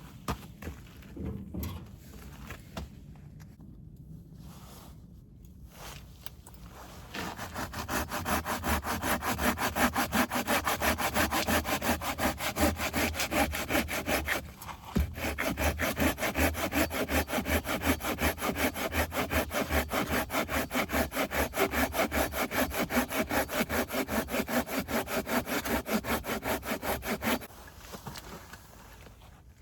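Hand pruning saw cutting through a piece of gathered firewood in quick, even strokes, stopping briefly about halfway and again near the end. Light knocks and rustling come before the sawing starts.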